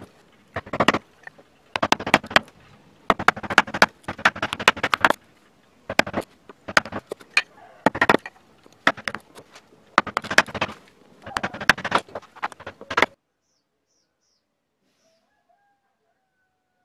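Carving gouge pushed by hand through hardwood, about a dozen cuts, each a short crackling slice as a chip is lifted. The cutting stops about 13 seconds in.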